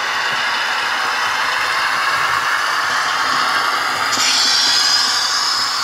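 Model trains running on their test loops: a Märklin H0 E41 electric locomotive with coaches on Märklin K-Track and a KATO N-gauge KiHa 58 railcar on Unitrack, laid over sound-insulating sheets and cork underlay. They give a steady rolling and running noise. About four seconds in, a higher hiss grows louder.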